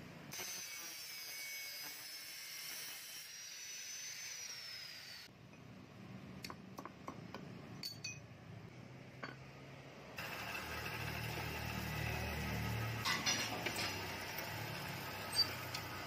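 Scattered sharp metallic clicks as steel locking pliers grip and work a thin stainless-steel knife blank. About ten seconds in, a steady low motor hum takes over, with a few more clicks.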